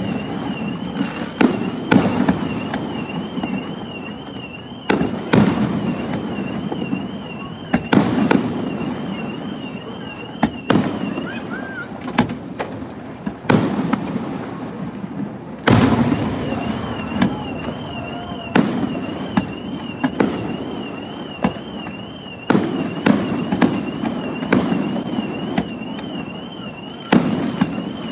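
Fireworks display: a rapid series of booms and bangs over continuous crackling, with a steady warbling electronic alarm tone sounding behind them that drops out for a few seconds near the middle.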